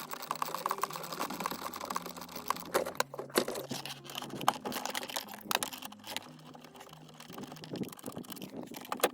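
Irregular small clicks, taps and rattles of hands and tools working on a car's plastic interior trim and seatbelt fittings.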